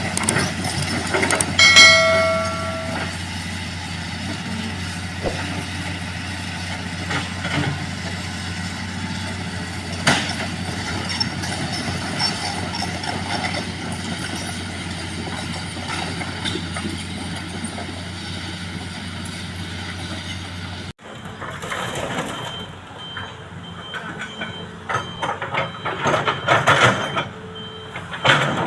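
Heavy road-work machinery engine running steadily, with a short horn blast about two seconds in. Near the end the sound changes abruptly to a reversing alarm beeping evenly over clanking and knocking.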